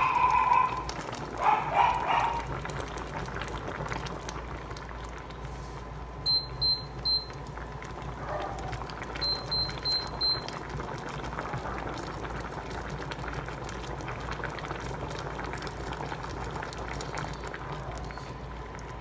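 A pot of pork hock and pigeon pea soup bubbling steadily at a boil. Near the start there are two brief ringing sounds, and in the middle two runs of short, high electronic beeps, three and then four.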